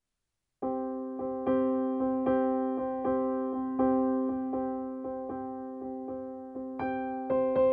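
Piano music: a held chord with notes struck at a slow, even pace, starting just under a second in, and higher notes joining near the end.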